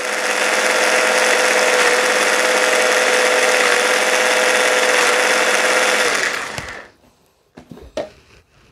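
Hand blender motor running on its chopper bowl, blending basil pesto with a loud, steady whine. It is switched off about six seconds in and spins down, then a few knocks as the motor unit is lifted off the bowl.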